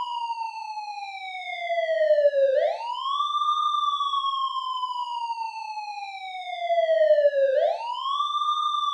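Civil-defence warning siren wailing as an alert. Its pitch climbs quickly, then sinks slowly over several seconds, once about two and a half seconds in and again near seven and a half seconds.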